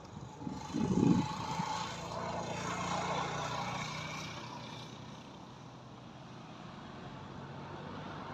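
A road vehicle passing by, its engine and tyre noise swelling and then fading, with a short loud bump about a second in.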